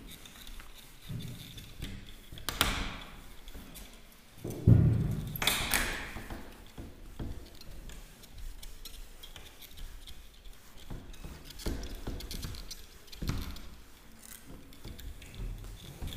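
Whiteboard being wiped clean with a hand-held duster: scattered rubbing swipes across the board, two of them sharper swishes, with a dull thump about four and a half seconds in, the loudest sound.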